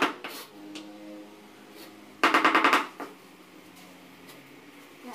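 Rubber mallet tapping a ceramic floor tile in quick runs to bed it into the mortar. The last taps of one run fall at the very start, and a burst of about eight rapid taps comes about two seconds in.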